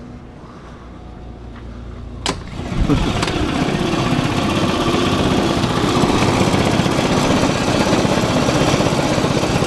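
A door clicks a little over two seconds in, then a go-kart engine is heard idling loudly and steadily for the rest of the time.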